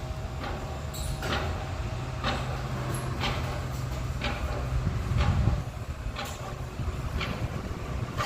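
Hyundai i20 brake noise: a short, sharp noise repeating about once a second over the car's low running sound. A low rumble swells about five seconds in, and the running sound drops after it.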